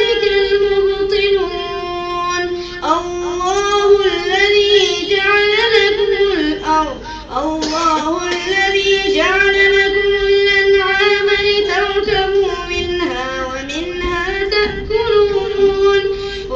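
Quran recitation in a high voice: long held notes with ornamented pitch turns, chanted in phrases separated by short breaths.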